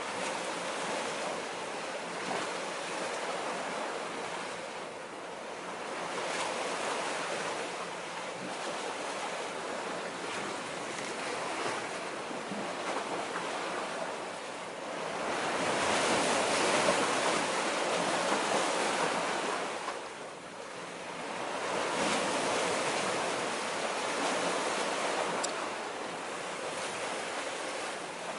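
Small waves washing against concrete breakwater blocks, a rushing wash that swells and fades in slow surges, loudest a little past halfway through.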